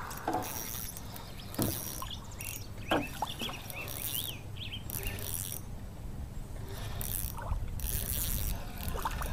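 Spinning reel cranked in short bursts as a small fish, likely a smallmouth bass, is reeled in on a bent rod, with small birds chirping.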